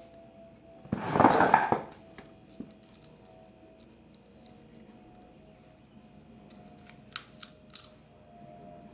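Handling noises: a short, loud scraping rustle about a second in, then four sharp clicks near the end.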